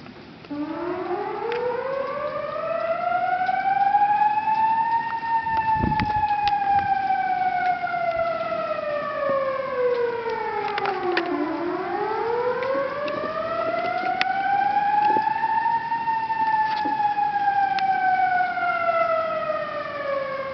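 Outdoor flood warning siren sounding a slow wail. It starts about half a second in, and its pitch rises and falls twice, each cycle about eleven seconds long. The siren warns that the river may overflow.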